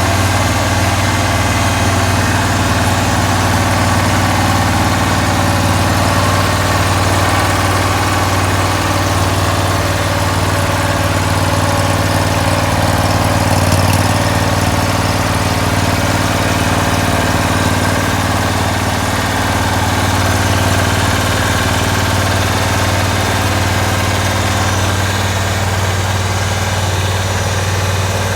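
A 14 HP Briggs & Stratton engine in a Cub Cadet 1282 garden tractor, idling steadily with no change in speed.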